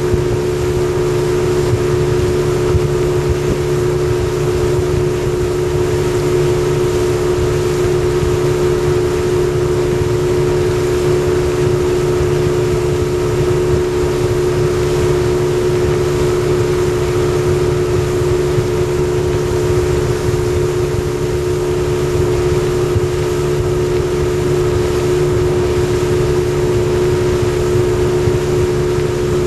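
Yamaha 40 hp two-stroke outboard motor running steadily with the boat under way, one constant, even drone.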